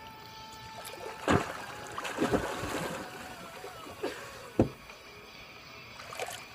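Swimming-pool water sloshing and splashing close to the microphone as a swimmer swims away across the pool, with two sharp knocks, one just over a second in and one about four and a half seconds in.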